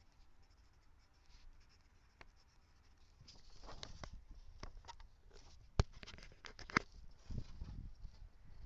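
Scratching and rustling handling noise with a few sharp clicks, two of them loud, in the second half.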